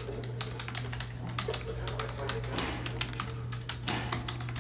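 Computer keyboard typing: quick, irregular keystroke clicks over a steady low hum, with faint television voices underneath.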